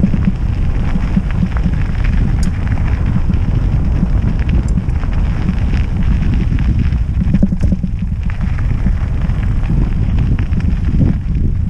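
Trek Roscoe 6 hardtail mountain bike riding downhill on a dirt trail: steady wind buffeting the microphone over tyre rumble on the ground, with a few scattered clicks and rattles from the bike.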